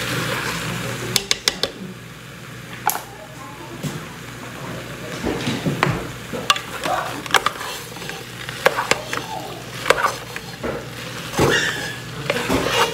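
Chunks of vegetables dropped into a pot and stirred in with a spoon, giving scattered clunks and knocks against the pot, with a cluster of several about a second in.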